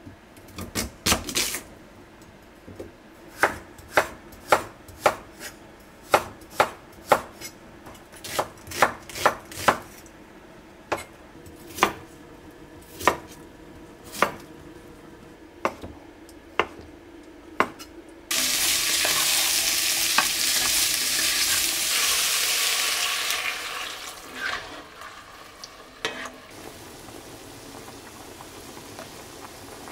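Kitchen knife slicing vegetables on a wooden cutting board: unhurried single cuts, about one or two a second. About eighteen seconds in, a loud sizzling as food hits hot oil in a pot starts suddenly, lasts about five seconds and dies down, followed by a few light knocks.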